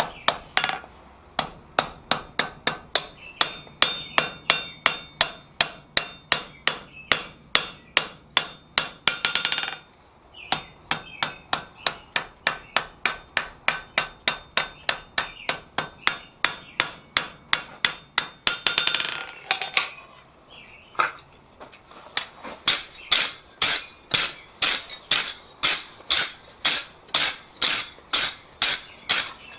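Hand hammer striking a red-hot steel rod's ball end on an anvil, forging the ball round, with sharp ringing blows at about three a second. The run of blows breaks twice, about ten seconds and nineteen seconds in, for a short scraping noise.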